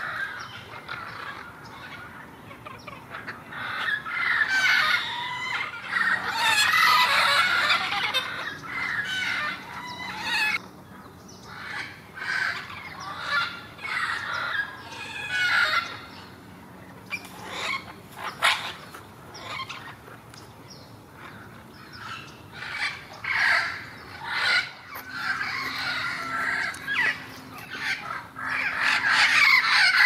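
Amazon parrots calling loudly in harsh, squawking bouts. The calls come thick for several seconds at a time, with calmer stretches between.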